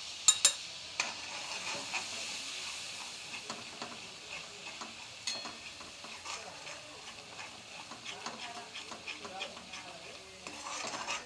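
Ground spices frying in hot oil and onion-tomato paste in a steel kadhai, sizzling steadily as a steel spatula stirs and scrapes through it. A couple of sharp metal clinks come just after the start.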